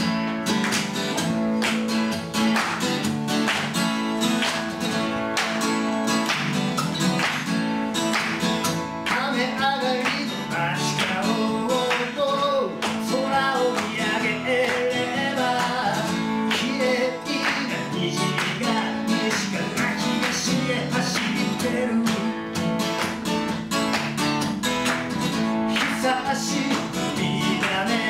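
Acoustic guitar strummed live in a steady rhythm, playing through the opening of a song.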